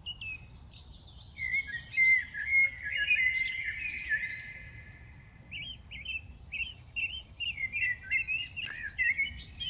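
Songbirds singing and chirping: a run of warbling song in the first few seconds, then a string of short, quick chirps.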